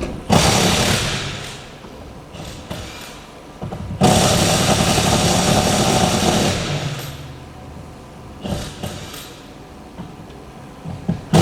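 A car engine revved in bursts: a sharp rev about a quarter second in that dies away, a longer held rev from about four seconds in, and a short blip near the end.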